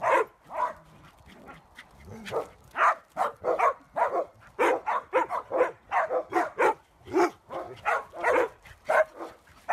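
Dogs barking in quick, short barks, about two or three a second, with a brief lull about a second in.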